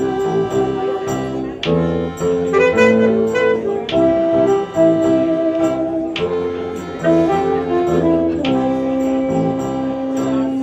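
Live band music: a saxophone plays sustained melody notes over accordion, electric guitar and drums, with a few sharp drum or cymbal hits.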